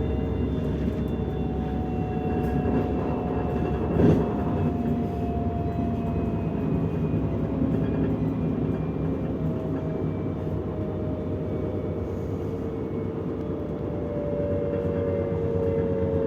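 DB Class 425 electric multiple unit heard from inside while running: steady wheel-on-rail rumble with a motor whine that slowly falls in pitch, and a single knock about four seconds in.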